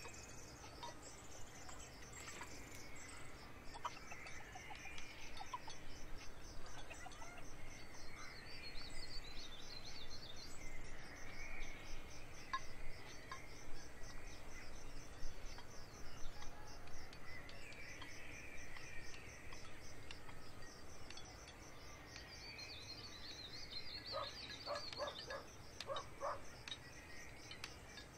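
Open-field countryside ambience: insects chirring in a steady, rapid high pulse, with birds calling now and then. A few short clicks come near the end.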